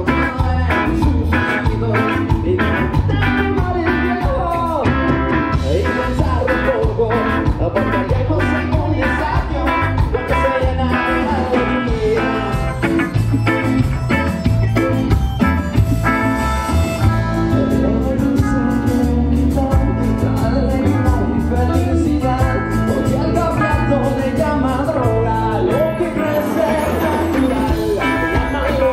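Live band playing through a PA with a steady beat: electric guitars, electric bass, stage keyboard and drum kit.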